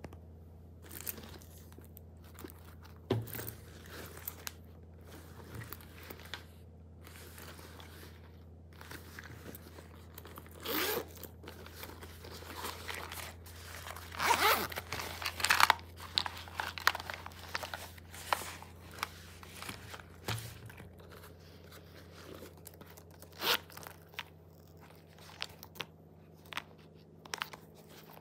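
Handling of a pleated leather Loewe Bracelet Pouch and the small zippered pouches inside it: the bag's metal zip is opened, and pouches are pulled out and set down, giving irregular rustling, scraping and small clicks of leather, fabric and metal hardware. The noises are louder for a few seconds about halfway through.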